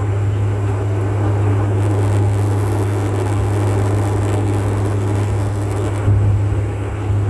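Bombardier Dash 8 Q400 turboprop on its takeoff roll, heard from a window seat beside the engine: a loud, steady low propeller drone over a rushing noise of the engine and airflow at takeoff power.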